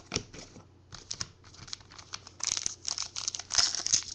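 A few light clicks of cards being handled, then from a little past halfway the foil wrapper of a 2012 Gridiron football card pack crinkling as it is picked up and handled, growing louder near the end.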